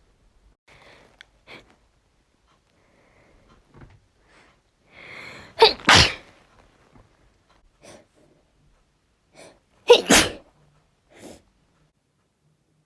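A woman sneezing naturally, twice: each time a short gasping in-breath builds up to a loud sneeze. The sneezes come about halfway through and again near the end.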